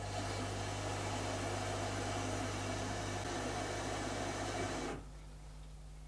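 Zanussi ZKN7120L washing machine taking in water at the start of a wash: a steady mains hum from the water inlet valve with water rushing through the detergent drawer, cutting off sharply about five seconds in.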